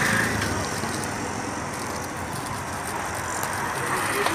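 Steady street background noise, mostly passing road traffic, an even rumble and hiss with no separate sharp sounds.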